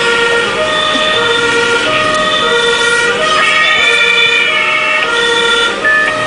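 Two-tone sirens of German fire engines (Martinshorn) sounding together, each stepping back and forth between a low and a high note. The sirens run out of step with each other and are heard from inside a fire engine's cab.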